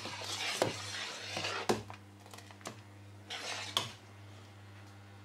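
Metal ladle stirring boiling tomato purée in a stainless steel pot, with a swishing scrape and several sharp clinks against the pot.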